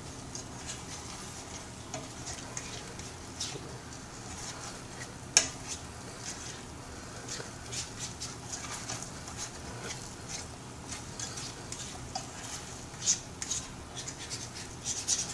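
Plastic fork stirring a thickening peach and cornstarch sauce in a skillet: irregular soft scrapes and clicks against the pan, with one sharper knock about five seconds in.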